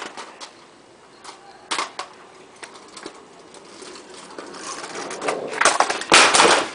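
Kick scooter wheels rolling over an asphalt driveway, a rattling hiss that grows louder as the scooter nears and is loudest as it passes close by near the end. A few sharp clicks come in the first couple of seconds.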